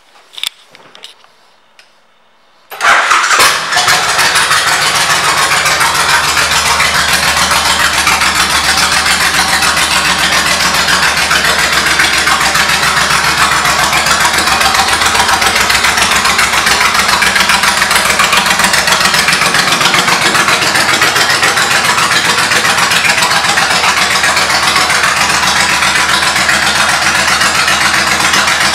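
1998 Suzuki Intruder 1500 LC's V-twin engine, fitted with aftermarket exhaust pipes: a few clicks, then it is started about three seconds in and settles into a steady idle.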